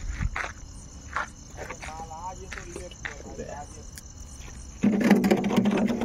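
Crickets chirping in a steady high trill. About five seconds in, a louder steady low-pitched sound starts and covers them.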